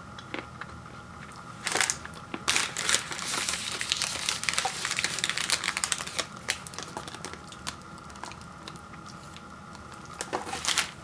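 Foil granola-bar wrapper crinkling in the hands: a short crackle about two seconds in, a long stretch of dense crinkling through the middle, and another burst near the end.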